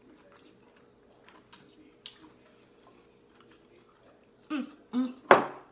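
Close-up eating sounds: faint chewing and small wet mouth clicks while lobster tail meat is eaten by hand. Near the end come two short hummed sounds, then one loud, sharp mouth noise.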